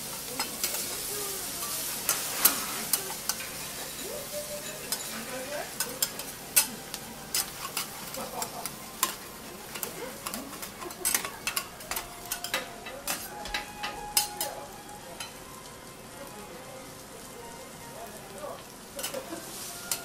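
Cabbage, meat and noodles sizzling on a hot iron teppan griddle while flat metal spatulas clink, tap and scrape on the steel as the food is chopped and turned. The sizzle is strongest in the first few seconds, and the clinks come thick and irregular, thinning out near the end.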